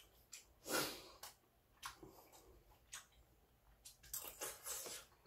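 A man eating soup with a metal spoon: a slurp a little under a second in, a few light clicks, and more slurping and chewing about four seconds in.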